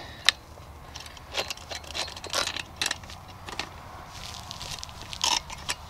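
A chainsaw chain being pulled off the bar by hand: loose metal links clinking and rattling in scattered short bursts, with one sharp click near the start.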